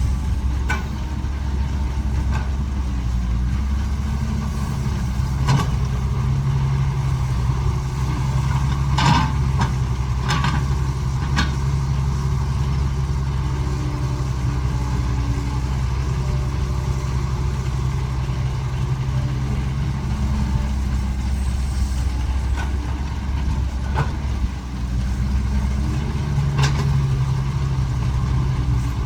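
Caterpillar 312 excavator's diesel engine running steadily under work, its pitch lifting slightly a few times, with a few sharp knocks, several close together near the middle.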